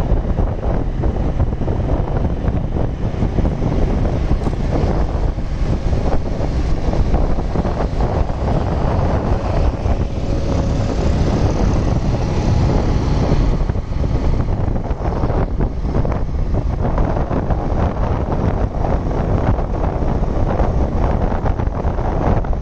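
Steady wind buffeting the microphone of a moving motorcycle, with a low rumble of tyres on wet road.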